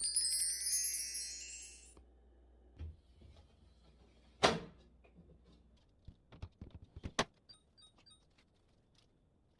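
A bright, shimmering chime runs for about two seconds at the start. A single loud thunk comes about four and a half seconds in, followed by a few lighter knocks and clicks.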